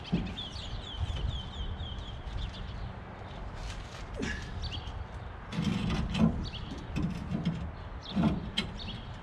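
Scattered metal clanks and knocks as a brake drum is handled on a pickup's rear axle hub, the loudest cluster a little past the middle, with birds chirping in the background.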